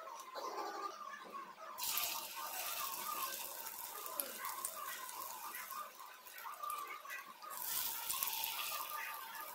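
Dosa-wrapped vegetable spring rolls going into hot oil in a nonstick pan and sizzling. A burst of sizzle about two seconds in settles into a steady fry, and a second burst comes late on as another roll is laid in.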